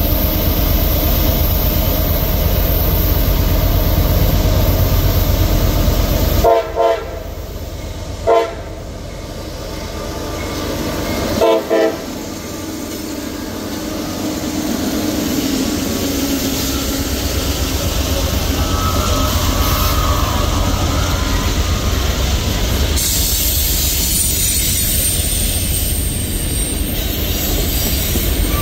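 A CSX freight train passing close by. Its diesel locomotives run with a steady low rumble, and between about 6 and 12 seconds in the horn sounds a series of short blasts. The freight cars then roll past with a continuous rolling rumble.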